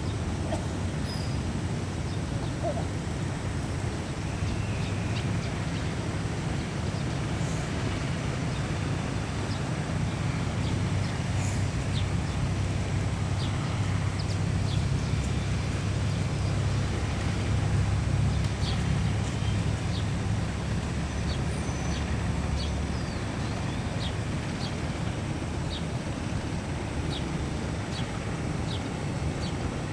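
Low, steady engine rumble that grows louder through the middle and eases off about two-thirds of the way through, with many short high chirps scattered over it.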